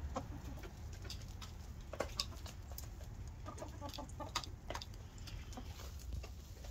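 Backyard hens clucking softly now and then, with scattered light clicks, over a low steady rumble.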